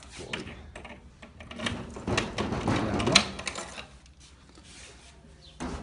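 Green louvered shutters being handled and pushed aside, giving a rattling clatter of knocks and clicks. The clatter is loudest about three seconds in.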